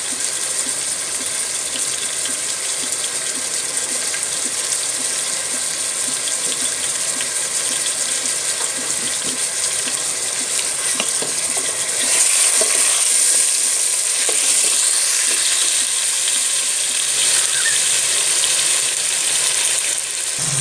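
Chicken pieces frying in oil in a pan: a steady sizzle that gets louder about twelve seconds in.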